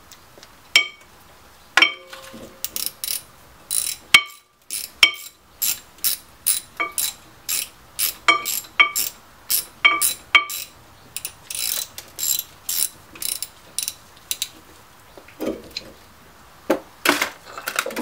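Ratchet wrench clicking in irregular runs of sharp clicks as the brake hose fitting is tightened into a new rear brake caliper.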